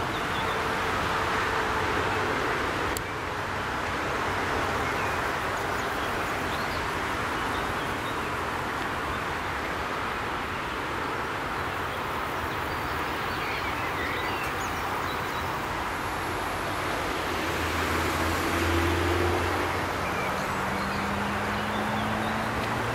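Steady roar of nearby motorway traffic. About three-quarters of the way through, a passing vehicle's engine hum stands out and rises slightly in pitch.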